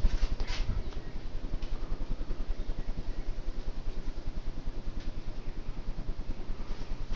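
1990 Hunter Original four-bladed ceiling fan running on medium speed. The blades push air past the microphone in a steady whoosh with a rapid, even pulse.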